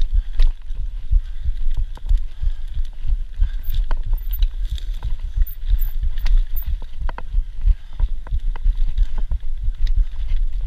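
Mountain bike jolting over a rough dirt trail: continuous low, irregular thumping with many short rattles and clicks from the bike, mixed with wind buffeting the action-camera microphone.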